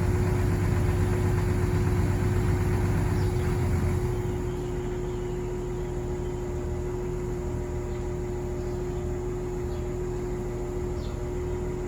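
Excavator's engine running steadily with a constant whine over a low rumble; about four seconds in the rumble drops and it runs on more quietly.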